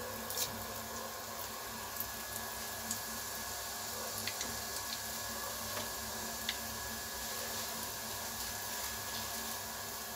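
Cumin seeds frying in hot oil in an iron kadhai: a steady sizzle with scattered small pops and crackles as the seeds splutter at the start of the tempering.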